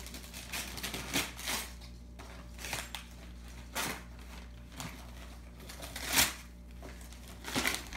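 Christmas wrapping paper being torn off a gift box in a series of short, irregular rips and rustles, the loudest about six seconds in.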